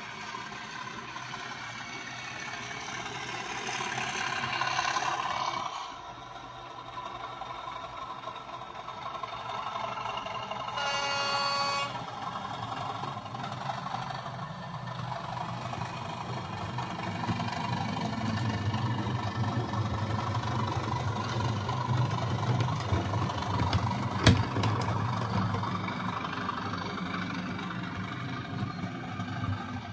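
Sound-fitted model class 37 diesel locomotive running on its layout: the factory DCC sound decoder plays the diesel engine's steady drone through the model's small onboard speaker, growing louder in the second half. A short horn blast sounds about eleven seconds in, and there is a single sharp click later on.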